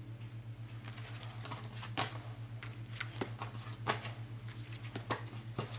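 Tarot cards being shuffled and handled: scattered light clicks and snaps, irregularly spaced, over a steady low hum.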